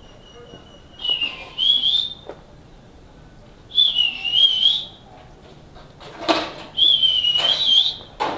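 A person whistling a wavering tune in three short phrases, with a few brief scuffing noises near the end.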